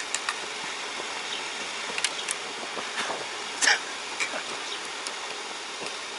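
A thin metal poker clicking and scraping in the firebox door of a small coal-fired model locomotive as the coal fire is stoked, about half a dozen sharp clicks, the loudest and longest a little past halfway, over a steady hiss.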